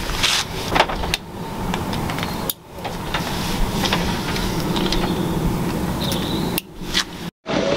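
Rustling and small clicks of electrical cable being handled, its ends worked by hand, over a steady background noise. The sound drops out briefly twice near the end.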